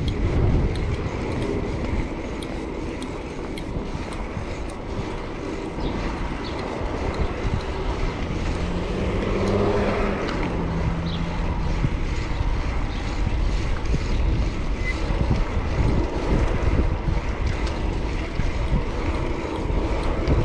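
Wind buffeting the microphone over the rumble of city traffic while riding a bicycle, with a motor vehicle passing close by about halfway through.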